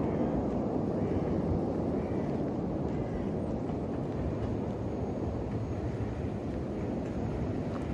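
Steady low rushing outdoor noise.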